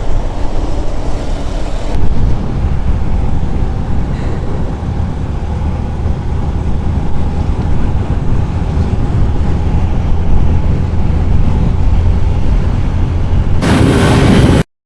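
Heavy wind buffeting the microphone of a Yamaha FZ 2.0 motorcycle at high speed, a steady low rumble with the bike's engine drone faint beneath it. Near the end a brief louder rush, then the sound cuts off abruptly.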